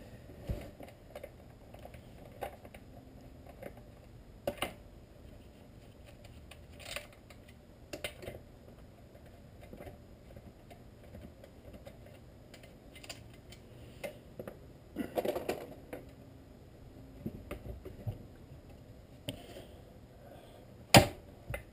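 Scattered light clicks and knocks of hands handling a Husqvarna 455 Rancher chainsaw and removing its clutch cover and bar nuts on a wooden workbench, with one sharp, much louder clack near the end.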